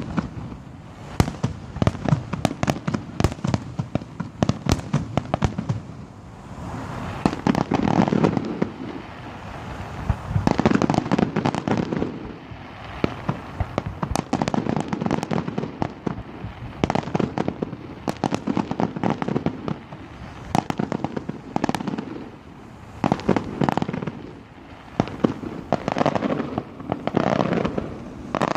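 Fireworks going off without a break: rapid crackling pops and sharp bangs, with louder rumbling swells of bursts every few seconds.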